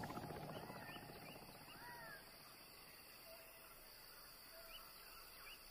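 Quiet outdoor ambience: faint, scattered short bird chirps over a low hiss that dies down during the first two seconds.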